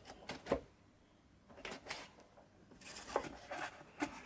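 Faint handling noise: scattered light clicks and short rustles of objects being moved about on a workbench by hand.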